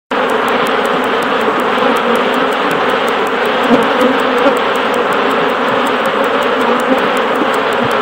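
Dense, steady buzzing of a large mass of honeybees clustered on an exposed hanging nest.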